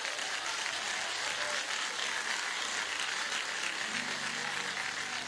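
A church congregation applauding, a steady patter of many hands clapping.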